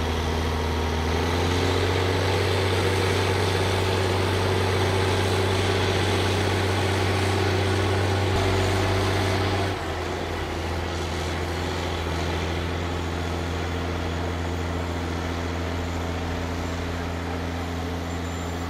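IFA W50LA truck's four-cylinder diesel engine running steadily at low revs under load as the truck crawls off-road. Its note rises slightly about a second in, then drops to a lower, quieter note about halfway through.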